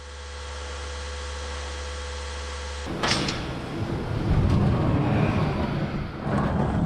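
A steady mechanical hum, then about three seconds in a sudden loud scraping, rumbling noise that carries on.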